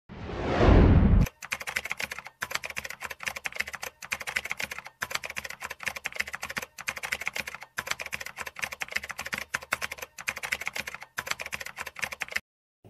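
Rapid keyboard typing: dense clicks in runs of about a second, separated by short pauses. It is preceded in the first second by a loud whooshing swell that builds and then cuts off suddenly.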